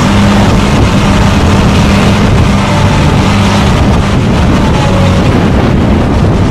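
Diesel engine of a heavy-haul modular transporter running steadily under a big load, a low hum beneath a loud, even rushing noise.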